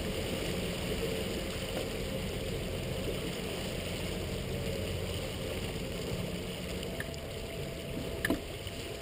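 Boat moving slowly across calm water: a steady low rumble with water noise, and a short sharp click near the end.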